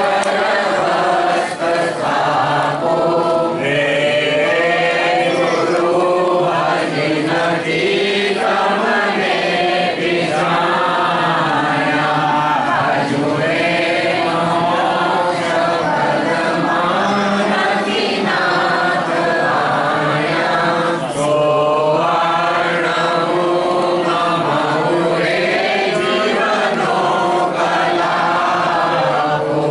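A crowd singing a devotional bhajan together in chorus, a steady unbroken chant of many voices with no instruments standing out.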